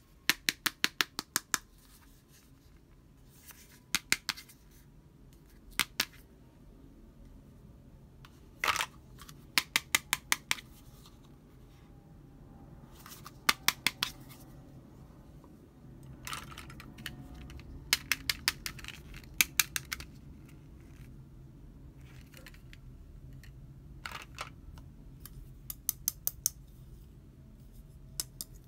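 Fingernails tapping and clicking on small hard plastic doll accessories, a toy hand mirror and a toy comb. The clicks come in short quick runs of about five to eight sharp clicks, repeated every few seconds.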